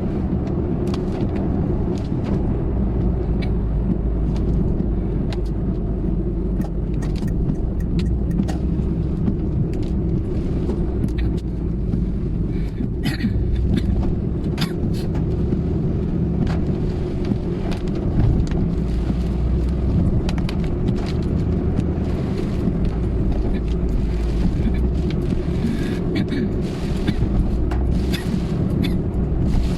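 Inside a moving car in rain: steady engine and road rumble, with many irregular ticks of raindrops striking the car.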